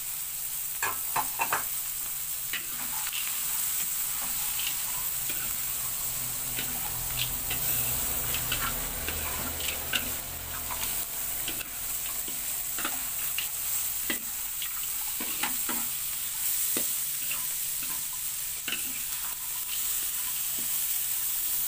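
Chillies, tomato and salted anchovies sizzling in oil in an aluminium wok, with a metal spatula scraping and clinking against the pan as the stir-fry is tossed. The sizzle is a steady hiss, broken by frequent short scrapes and clicks, a few sharper ones about a second in.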